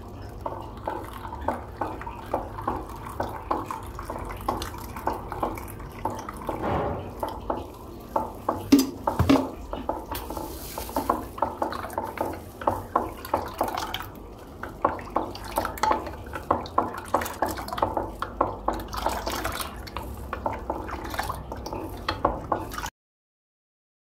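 A spatula stirring a watery green paste in a glass dish, with a quick, irregular run of taps and scrapes against the glass and a louder clatter partway through. The sound cuts off abruptly near the end.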